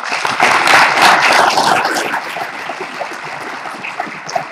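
Audience applauding, loudest in the first two seconds and then tapering off.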